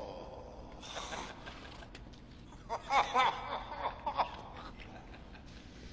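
A person chuckling softly: a few short laughs in quick succession a little under halfway through, over a faint steady background.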